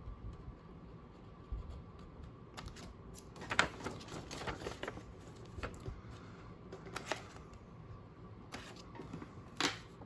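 Scissors snipping through a folded sheet of paper: a string of separate, irregular sharp snips, the loudest about three and a half seconds in.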